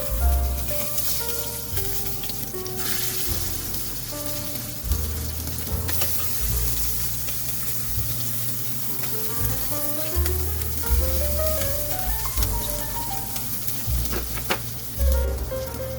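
Food sizzling in a frying pan as it is stirred, with scattered taps and scrapes of the spatula against the pan.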